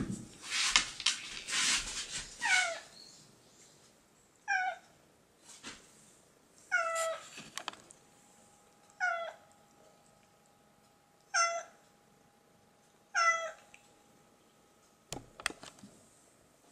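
Domestic tabby cat meowing for its breakfast: six short meows, each falling in pitch, about two seconds apart, after some rustling and clatter at the start. A few sharp clicks come near the end.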